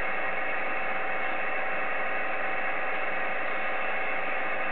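Steady hiss of band noise from an Icom IC-7300 shortwave transceiver's receiver on 10-metre upper sideband between transmissions, with two faint steady tones through it.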